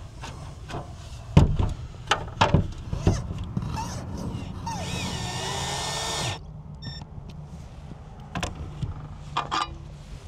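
Cordless drill driving a screw through a small metal bracket into wood, its motor running for about a second and a half before stopping suddenly. A few sharp knocks and clicks come before and after it.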